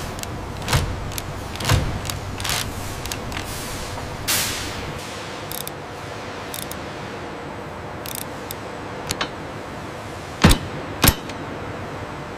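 Scattered sharp metallic clicks and clanks of hand tools working on steel machinery over a steady workshop hum. Near the end come two louder clanks about half a second apart.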